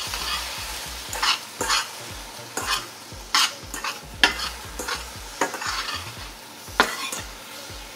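A spoon stirring fresh blueberries and sugar in a stainless steel pan. It scrapes and taps against the pan about every half second to second.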